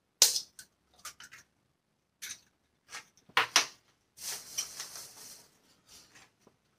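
An egg rapped sharply once on the rim of a bowl to crack it, followed by a scatter of small clicks and knocks and about a second of rustling as the egg is opened and handled.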